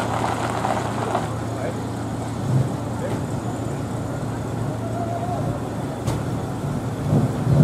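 Street ambience: a steady low hum of vehicles with the indistinct chatter of people standing about.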